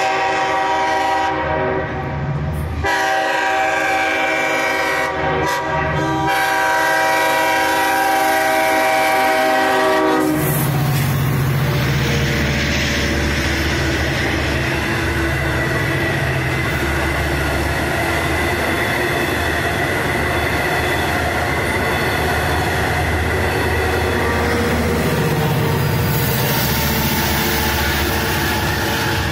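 Long Island Rail Road DM30AC locomotive horn sounding a short blast and then a long blast of about seven seconds. Then the train passes close by, with heavy rumbling from the locomotive and the wheels of the bi-level coaches.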